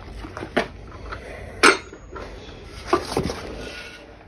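A few clunks and metallic clinks as old household objects are handled: a wooden hand coffee grinder is put aside and a copper bed warmer taken up. About four knocks, the loudest about one and a half seconds in.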